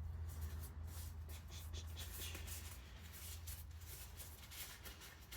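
Faint, irregular rustling and scraping of gloved hands fishing sludge out of a diesel tank, over a steady low hum.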